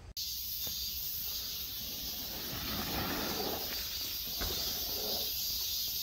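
Steady high-pitched drone of an insect chorus in summer woodland, with low rumble beneath and a few faint clicks.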